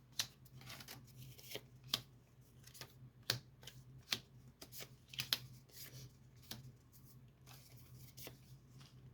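A deck of tarot cards being shuffled and handled by hand: faint, sharp card clicks at irregular intervals, over a steady low hum.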